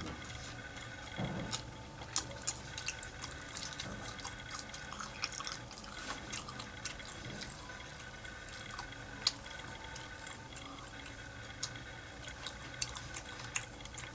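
Close-miked chewing with wet, irregular mouth clicks and lip smacks, over a faint steady hum.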